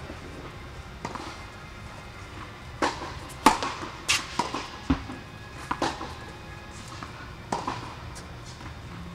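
Tennis balls bouncing and being hit in a large indoor tennis hall: a scattering of sharp, echoing knocks at irregular intervals, most of them bunched in the middle of the stretch.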